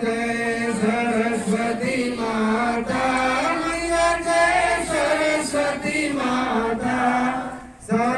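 Group of voices singing a devotional aarti hymn together, with long held notes, led by a man singing into a microphone. The singing breaks briefly near the end.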